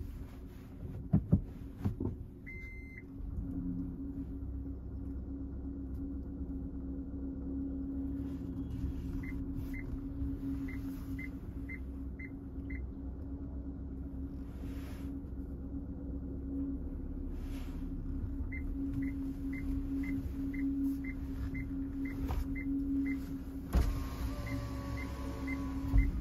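Suzuki car's reverse parking sensor beeping in short high beeps, about two a second, in spells, over the steady hum of the engine as the car reverses slowly. A few clicks and one longer beep come near the start.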